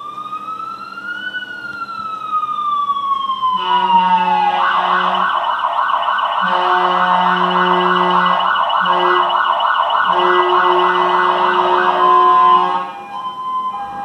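Jelcz GCBA fire engine on an emergency run: its siren gives a slow wail rising then falling, then switches about four seconds in to a fast yelp, while its air horns sound four long blasts of a low chord over it. It grows louder as it approaches and drops off sharply near the end as it turns past.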